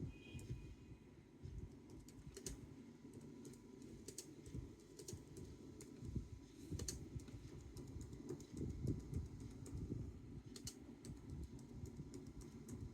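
Typing on a Bluetooth keyboard: a run of irregular key clicks, fairly faint.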